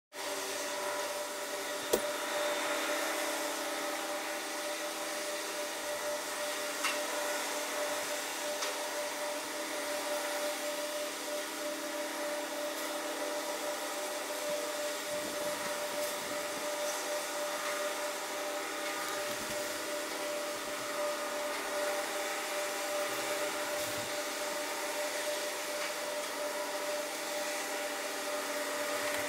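Steady whirring machine drone with several held tones, from harbour ambience played back at eight times speed, so it sounds high-pitched like a vacuum cleaner. There is a sharp click about two seconds in and a fainter one a few seconds later.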